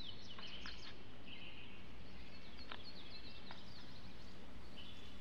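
Background birdsong ambience: many small birds chirping in short, quick high notes, over a steady low hiss.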